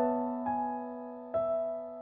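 Background music: soft keyboard notes in a slow melody, a new note struck about every second and fading away, over a held low note.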